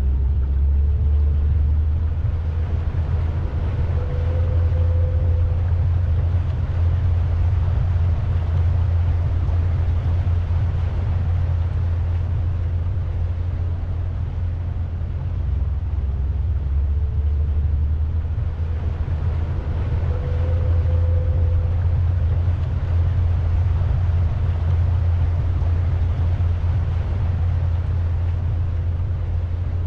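Pontoon boat under way, its motor running with a steady low rumble.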